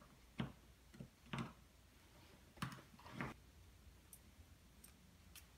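Light clicks and taps of small metal parts as a McCulloch chainsaw's carburetor is unscrewed and taken apart by hand, about five distinct clicks in the first three and a half seconds, then a few faint ticks.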